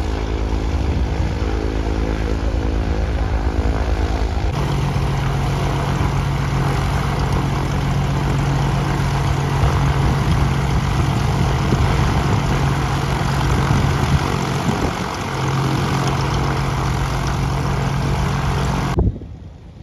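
Piston engine of a single-engine propeller airplane running at low taxi power close by: a steady drone with a strong low hum. The sound shifts about four seconds in, dips briefly late on, and cuts off suddenly just before the end.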